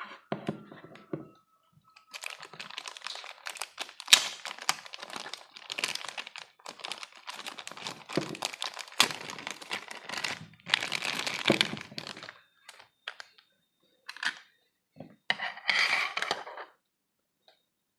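Plastic packaging of an action figure being handled: crinkling and crackling with sharp clicks and light knocks, in a long busy stretch and then a few short bursts near the end.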